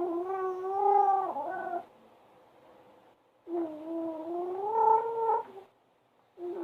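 Baby making a weird, drawn-out droning vocal noise that sounds like a pumpboat. It is held for about two seconds at a time, stops, comes again after a short pause, and starts a third time near the end.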